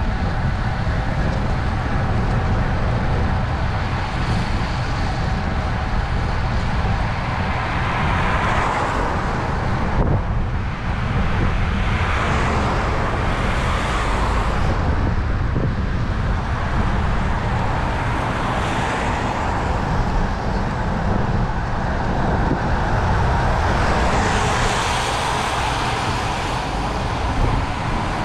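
Road traffic: several motor vehicles pass one after another, each swelling and fading, over a steady low rumble.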